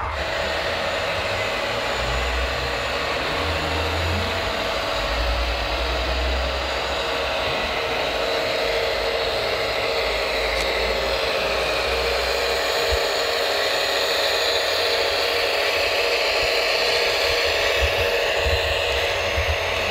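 Electric drive motor and gearbox of a radio-controlled scale Fendt 1050 tractor whining steadily as it drives. A low rumble comes and goes in the first half.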